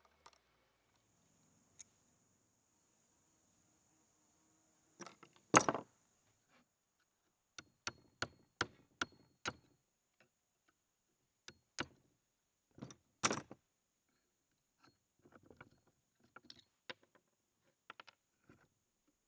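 Scattered metal clinks and knocks as the rusty parts of an old mechanical floor jack are worked loose with pliers and handled. The loudest knocks come about five and a half seconds in and again near thirteen seconds.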